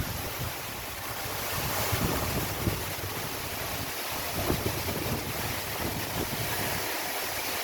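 Steady rush of a waterfall, with wind buffeting the microphone in irregular low gusts.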